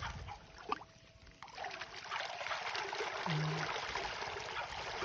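Water splashing and trickling, starting up about a second and a half in and then running steadily, after a single sharp knock.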